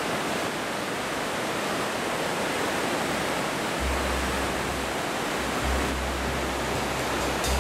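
Rushing water of a stream in a gorge, a steady even hiss; a deep low rumble joins it about halfway through.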